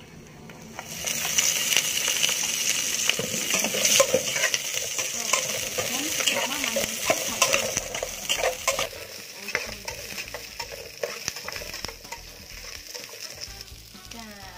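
Lemongrass, shallots and garlic sizzling in a hot metal pot, stirred with a metal spatula that scrapes and clicks against the pot. The sizzle swells about a second in and eases off after about nine seconds.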